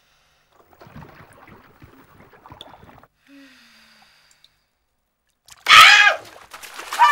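A woman cries out loudly and suddenly a little over halfway through as she surges up out of a bubble bath, followed by shorter gasping cries and the splash of bathwater. Before that there is only faint water movement.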